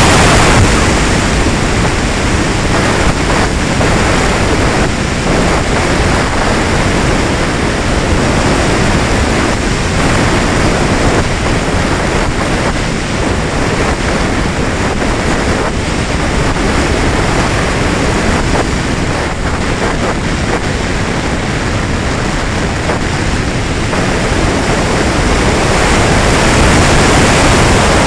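Steady rush of airflow over a wing-mounted camera's microphone on a Valenta Volcano R/C sailplane gliding with its folding propeller folded and motor silent, swelling a little near the end.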